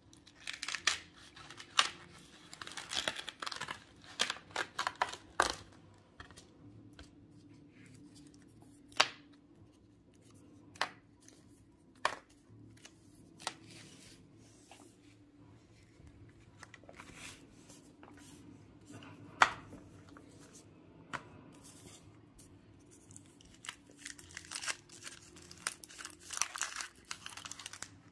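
Hands opening a cardboard chocolate box and its wrapping: crackly tearing and crinkling for the first few seconds, then scattered sharp taps of wrapped chocolate bars being set down on a tabletop. Near the end comes dense crinkling as a bar's clear plastic wrapper is peeled off.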